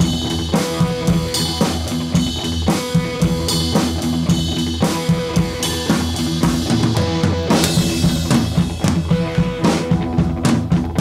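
Background music: an instrumental track with a steady drum-kit beat.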